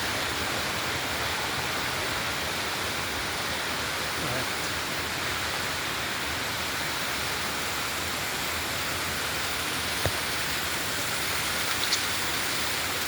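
Steady rushing of a waterfall, a constant even roar of falling water, with a couple of faint clicks about ten and twelve seconds in.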